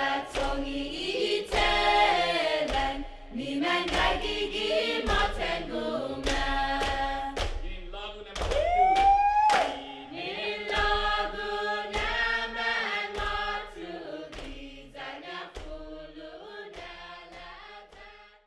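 A choir of voices singing a chant-like song. One voice sweeps up in pitch about halfway through, and the singing fades out toward the end.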